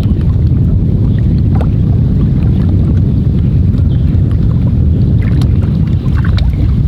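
Steady low rumble of wind buffeting the microphone on an open fishing boat, with a few faint ticks.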